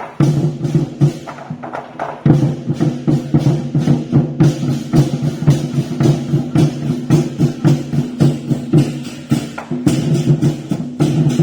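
Festival ritual music: a steadily held pitched instrument over a fast, continuous run of drum and clapper strikes. The held tone thins out for a moment about two seconds in, then comes back.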